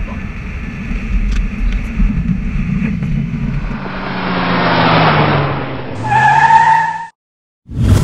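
Low steady rumble of an airliner on its landing roll, heard from the cockpit, followed by a whoosh that swells and falls in pitch like a car passing. Then a loud, high squeal like skidding tyres, about a second long, cuts off suddenly, and a brief burst of noise comes near the end.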